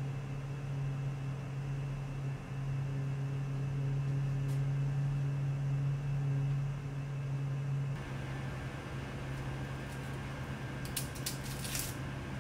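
A steady low hum of a motor or fan runs throughout and drops a little about two-thirds of the way in. Near the end come a few short scraping clicks of a small knife peeling a garlic clove.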